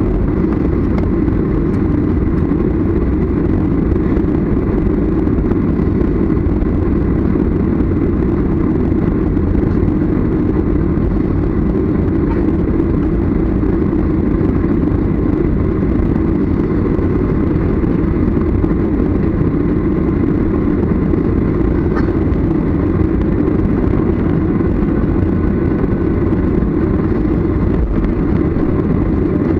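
Steady rumble and hum inside a jet airliner's cabin as it taxis after landing, its engines at taxi power, with a faint steady whine above the rumble.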